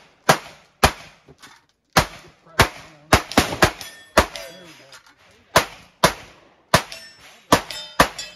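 Replica M1862 .58-calibre Gatling gun being hand-cranked and firing black-powder rounds: about a dozen sharp shots at uneven spacing, often about half a second apart with short pauses, each ringing briefly.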